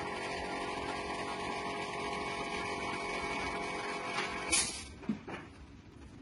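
A steady machine hum at a constant pitch stops abruptly about four and a half seconds in. A brief hiss and a knock follow.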